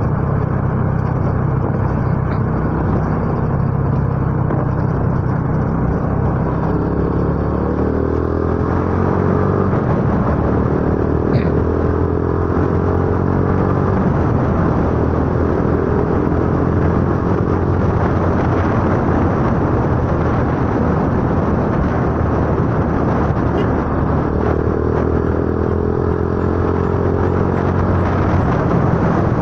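Motorcycle engine running under way with heavy wind noise on the microphone, heard from the rider's seat; the engine note rises as it accelerates about eight seconds in and again near the end.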